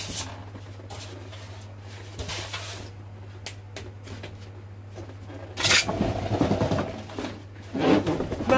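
Cardboard box being opened and handled: scattered rustles, taps and scrapes of cardboard, with louder sliding and scraping twice near the end as the RC truck is pulled out of the box. A steady low hum runs underneath.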